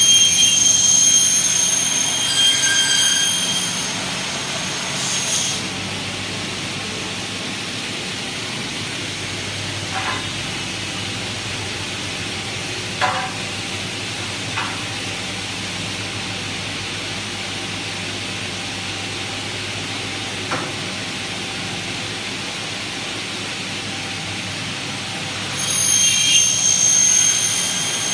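Double-head aluminium profile cutting saw cutting, its blades giving a high ringing whine for the first few seconds and again near the end. In between the machine runs steadily, with a few sharp clicks.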